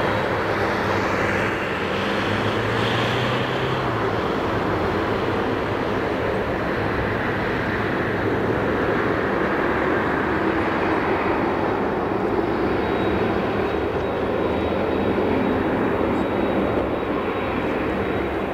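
Steady jet engine noise from an ANA Boeing 767-300 taxiing onto the runway, an even rumble and hiss that neither swells nor fades.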